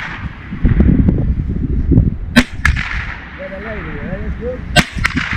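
Gunshots: two quick pairs of shots, the second pair about two and a half seconds after the first, each pair fired a quarter second apart.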